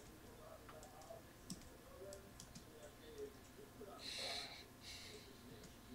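Faint, scattered clicks of computer input, a mouse or keyboard, as the pictures are stepped through. Two short soft breathy hisses come about four and five seconds in; otherwise the room is nearly silent.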